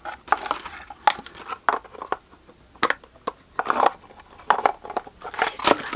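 Hollow plastic makeup organizer clacking and knocking as its parts are handled and fitted together, in a string of short, irregular clacks.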